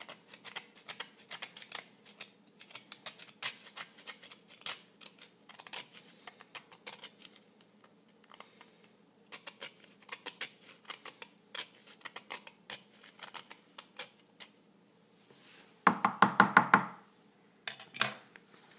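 Whole nutmeg rubbed on a grater over a metal pot: a long run of quick, irregular scraping strokes. Near the end come several loud knocks with a metallic ring, then one more.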